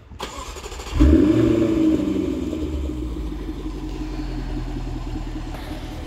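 Jaguar F-Type coupe's engine starting: brief cranking, then it catches about a second in with a loud rev flare that rises and falls back to a steady idle.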